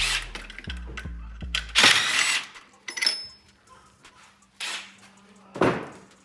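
Background music with a low bass line that stops about two seconds in, with hand tools knocking and clattering against metal parts in a car's engine bay; the loudest is a short rattling clatter about two seconds in, followed by a few separate knocks.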